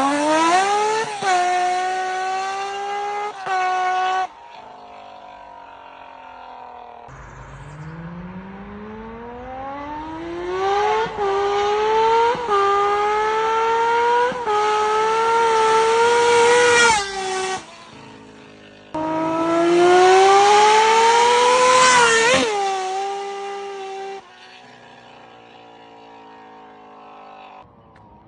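Honda CBX 1050's air-cooled inline six-cylinder engine, through an aftermarket exhaust, pulling hard in three separate runs: its pitch climbs steeply each time, with brief dips along the climbs that sound like gear changes, and it drops back to a much quieter level between runs.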